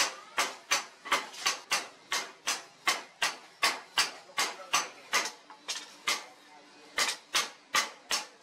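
Hand-hammer blows on a steel cleaver blade resting on an anvil, sharp ringing strikes at about three a second, with a short pause a little past halfway before the hammering resumes.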